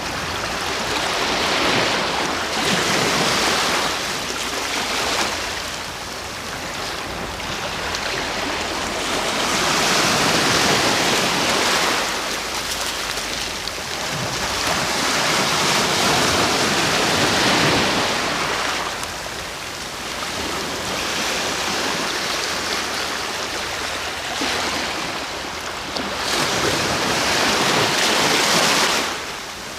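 Sea waves breaking and washing on the shore, the surf swelling and ebbing in several long surges.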